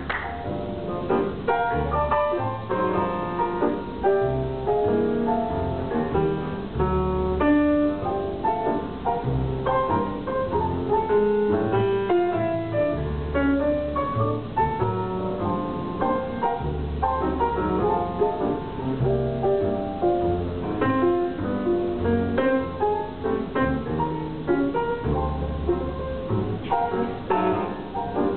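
Grand piano and double bass playing live together, the piano carrying the tune over low plucked bass notes.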